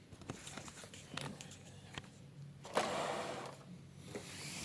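Hands handling a large plastic transforming robot figure: scattered light plastic clicks and knocks, with a brief rustle about three seconds in.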